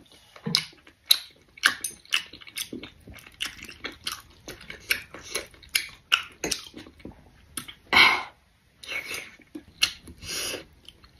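Close-miked chewing of beef and rice noodles: quick, wet mouth clicks and smacks, with a couple of longer, louder sounds near the end.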